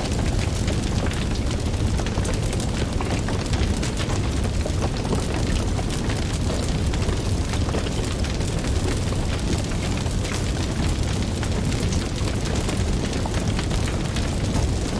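Wood fire burning in a fireplace: a steady low rumble of flame with many small crackles and pops throughout.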